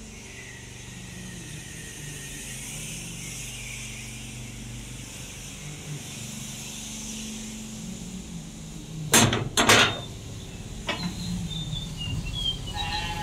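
Two loud, sharp bangs about half a second apart, with a weaker knock a second later, over a steady low hum.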